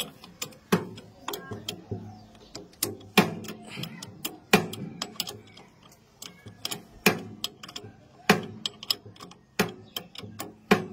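Irregular sharp clicks and knocks, several a second, with a louder knock every second or two.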